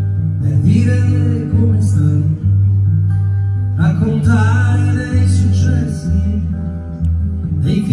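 Live band music: strummed acoustic guitar over deep upright double-bass notes, with a voice singing in places.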